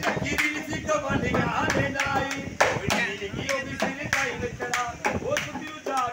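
Small hand drum struck by hand in a quick, uneven rhythm, with claps and a man's voice singing or calling along.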